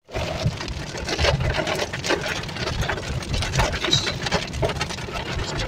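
Heavy rain hitting the roof and windshield of a moving car, heard from inside the cabin as dense, irregular patter over steady engine and road noise.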